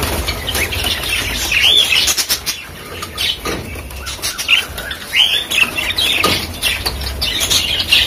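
Budgerigars chattering with short rising-and-falling squawks and chirps, over a run of sharp clicks and rattles from the wire-mesh cage as a clay breeding pot is pushed against it and hooked on.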